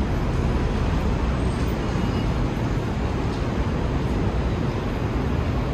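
Steady low rumble and hum of the Roosevelt Island Tramway's aerial cabin in motion, heard from inside the car.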